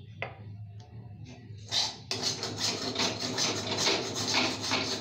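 A metal spatula scraping a cooking pan, with a light clink just after the start, then quick repeated rasping strokes from about two seconds in as the last of the dry potato curry is scraped out.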